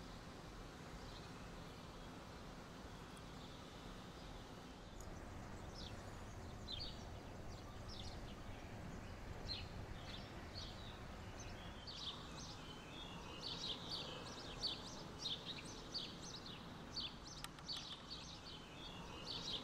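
Small birds chirping over faint steady background noise; the chirps are sparse at first and come thick and fast in the second half.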